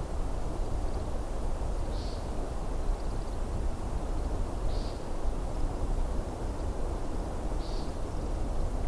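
American woodcock peenting: a short nasal call repeated three times, about every three seconds, over a steady wash of waves.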